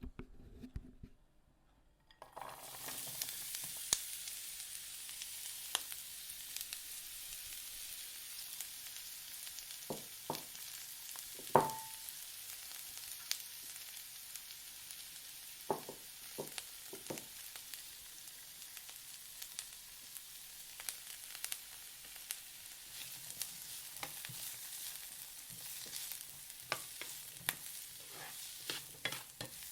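Food frying in hot oil: a steady sizzle with scattered pops and crackles, starting about two seconds in. Near the middle comes one louder sharp knock with a brief ring.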